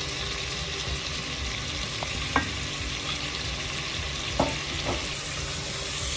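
Onion-tomato masala sizzling as it fries in oil in a cooking pot while it is stirred, with a few sharp clicks of the spoon against the pot.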